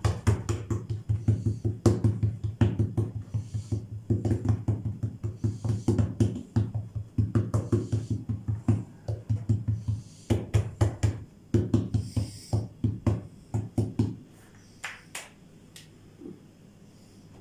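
Hands rapidly patting and pressing a round of soft yeast dough flat on a silicone baking mat: quick runs of dull slaps, several a second, that stop about fourteen seconds in, after which come only a few light taps.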